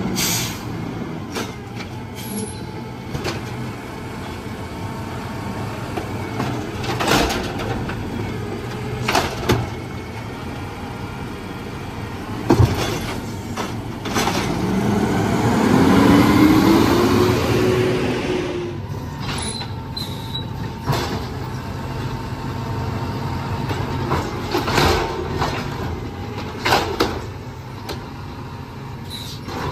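Automated side-loader garbage truck working carts at the curb: its CNG engine runs under a string of sharp clanks and knocks from the hydraulic arm and the carts. About halfway through the engine revs up in a rising whine to drive the hydraulics.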